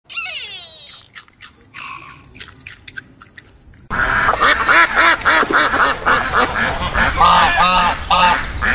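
A flock of white domestic ducks quacking loudly and continuously, beginning suddenly about four seconds in. Before that there is a brief wavering animal call and a few faint clicks.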